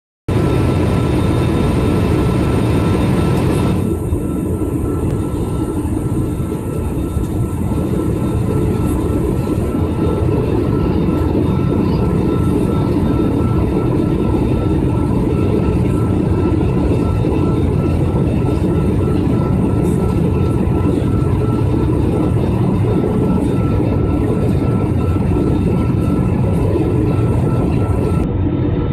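Steady cabin noise of a jet airliner in flight, heard at a window seat beside the wing-mounted turbofan engine: a dense, low rushing of engine and airflow with a faint steady whine above it. The highest hiss drops away about four seconds in.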